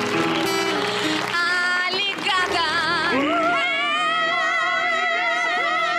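A woman singing over instrumental backing, her line moving with vibrato and then settling about three and a half seconds in onto one long, high held note with a wide vibrato.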